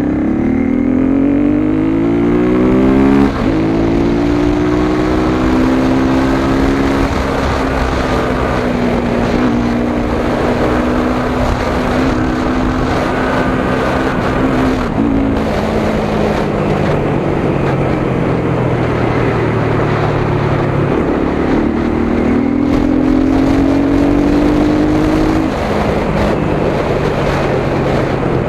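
Honda CBR250R's single-cylinder engine running through an Akrapovic slip-on exhaust with its dB killer fitted, the bike under way. It revs up and shifts gear about three seconds in, then pulls and eases through further gear changes. It revs up once more near the end before shifting down in pitch.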